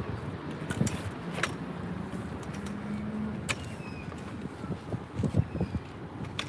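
Steady hum of distant road traffic, with a few sharp clicks in the first half.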